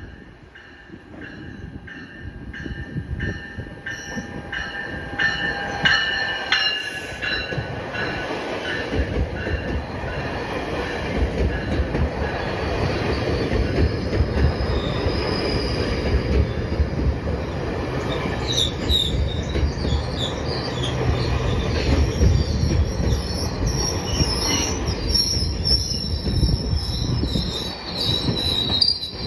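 A GO Transit diesel commuter train moves through the station, growing louder over the first several seconds with a steady series of clicks. A deep rumble follows, and in the second half the wheels give high-pitched, wavering squeals.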